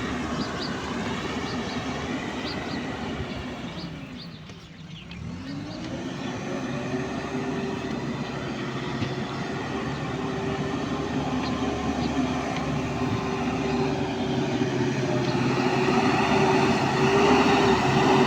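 JCB backhoe loader's diesel engine running as the machine works its hydraulics. About four to five seconds in, the sound drops briefly, then it rises in pitch and grows steadily louder toward the end as the engine takes up load.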